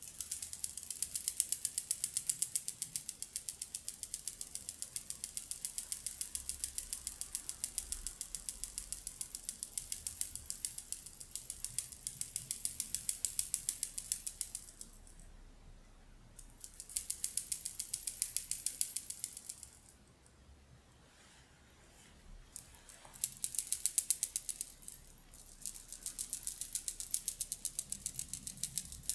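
Fast, even rattling clicks in several runs, high-pitched and dry, breaking off briefly about halfway through and again about two-thirds of the way in.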